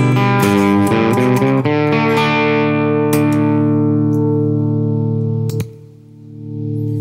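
Electric guitar chords played through a Fairfield Circuitry Accountant compressor pedal. A few quick strums give way to a chord left ringing and fading for several seconds. About five and a half seconds in, a click comes as a switch on the pedal is flipped, and the sound drops away briefly and then swells back.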